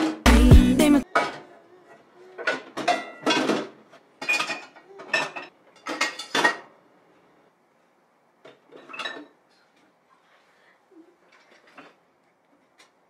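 Pots, pans, mugs and plates clattering and clanking as they are set down one after another into a stainless steel sink: a quick run of knocks for about six seconds, then only a few faint scattered knocks.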